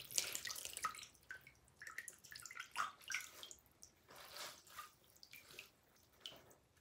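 Soft, wet squishing and rustling of hands working hair product through a doll's wet hair, in short irregular bursts.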